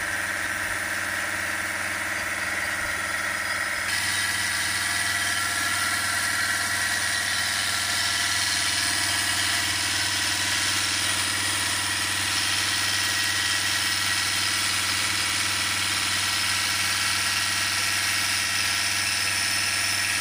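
Volvo common-rail diesel engine running at a steady, held speed of about 2000 rpm, with no rise or fall in revs. A brighter hiss comes in about four seconds in.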